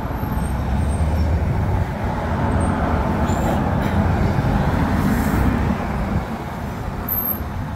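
Strong wind buffeting the microphone: a heavy, gusting low rumble with no let-up.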